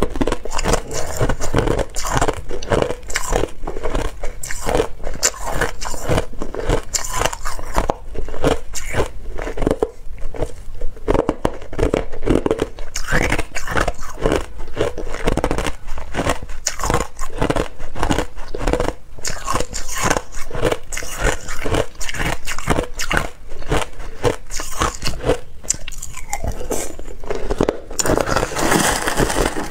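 Close-up crunching of hard ice chunks being bitten and chewed, a quick run of sharp crunches throughout. Near the end a metal spoon scrapes and scoops through crushed ice in a plastic tray.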